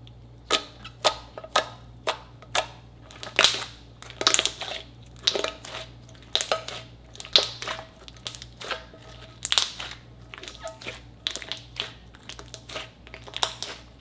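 Thick glossy slime being pressed, folded and kneaded by hand, giving a series of sharp wet pops and crackles. The pops come about two a second at first, then faster and more irregular.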